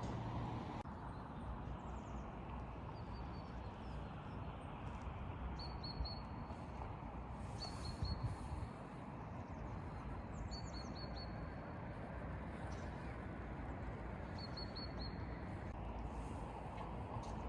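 A small songbird repeating short phrases of three or four quick high chirps every few seconds, over a steady low background hiss.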